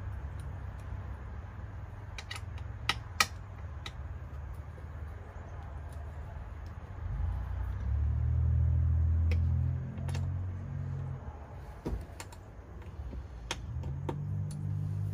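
Scattered sharp clicks and taps of metal hardware being worked by hand while a plate is fitted with bolts, the two loudest about three seconds in. A low rumble underneath swells for a few seconds in the middle and again near the end.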